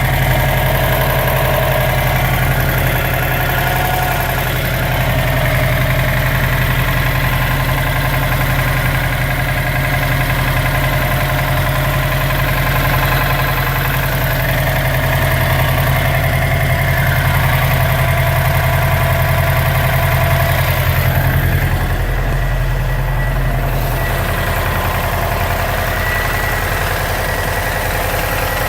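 Subaru Impreza WRX STI's turbocharged flat-four engine idling steadily, with a noise the owner asks may be rod knock.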